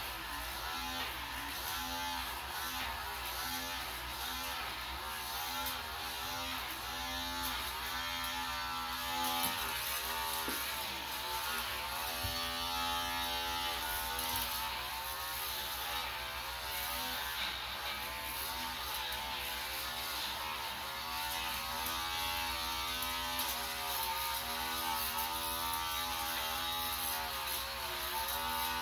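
Long-handled electric back shaver buzzing steadily, its tone wavering as it is swept across the back.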